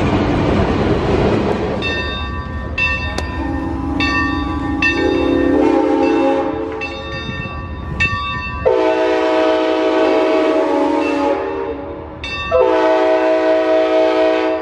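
Whistle of the Santa Fe 3751 steam locomotive blowing: shorter broken toots, then two long blasts of a few seconds each near the end, with steam hiss under the chord. At the start, the rumble of a passing freight train fades out.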